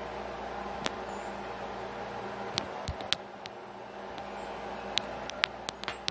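Steady low hum and hiss of room noise, with scattered sharp, short clicks: one about a second in, three close together around the middle, and five or six in quick succession near the end.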